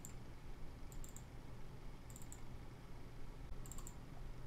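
Faint computer mouse clicks, in quick double-clicks and short runs, about four times roughly a second apart, as folders and files are opened. A steady low hum sits underneath.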